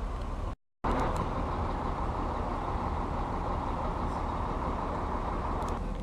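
Steady outdoor vehicle and street noise, with engines running and a constant rumble. It drops out completely for a split second just after half a second in, then resumes unchanged.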